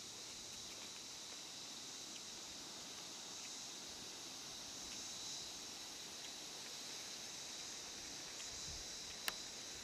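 Steady high-pitched chorus of insects calling in the surrounding grassland, with one short click near the end.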